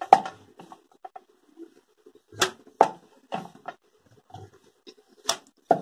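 Wooden rolling pin rolling out a thin sheet of maida dough on a wooden board, with a handful of irregular sharp knocks and clacks as it works.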